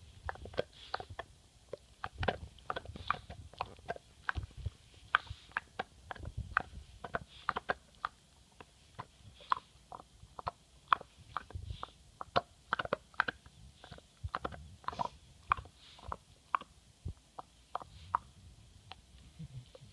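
English Bulldog gnawing a hard chew bone: an irregular run of sharp clicks and crunches, several a second, as his teeth grind and scrape on the bone, with a low rumble underneath.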